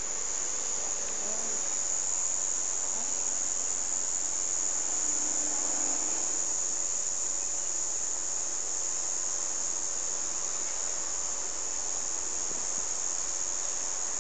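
Steady, high-pitched drone of a summer insect chorus, with a faint low rumble of the passing Airbus A320 jet beneath it.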